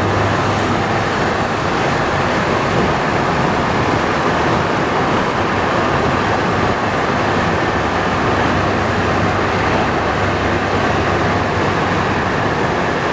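Steady rumble and hiss of a train in motion heard from aboard, with a low hum underneath.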